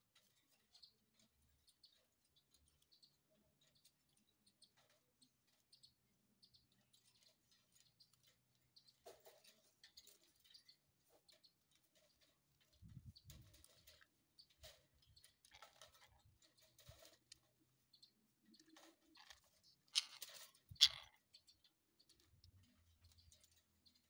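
Faint scattered scratching and clicking of parakeets climbing on a wire cage, their claws and beaks on the bars. Near the end come two brief, sharper sounds about a second apart.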